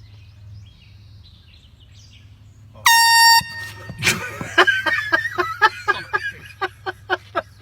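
Air horn fires in one loud blast of about half a second, roughly three seconds in. It is followed by a startled cry and then a quick run of short, evenly paced voice bursts.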